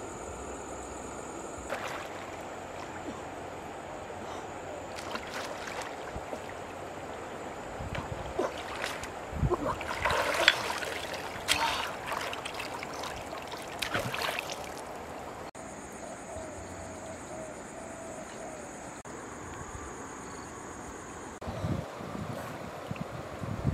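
Flowing river water with a steady wash, and splashing from about eight to fifteen seconds in, and again near the end, as a person wades waist-deep through the water.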